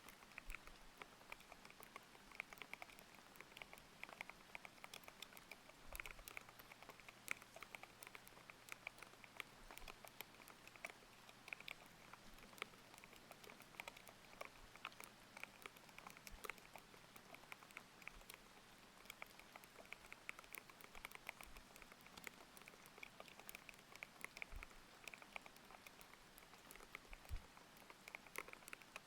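Quiet, steady typing on a mechanical keyboard with Aqua King linear switches: a fast, irregular run of soft key clicks over a faint layer of rain.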